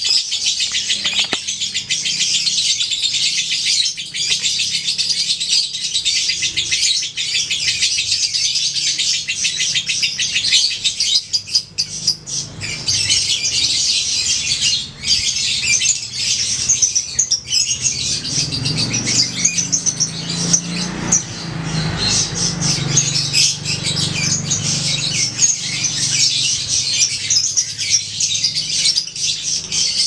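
Yellow lovebird singing a long, nearly unbroken fast chattering trill, only briefly pausing twice: the long-running song that lovebird contest keepers call semi-konslet.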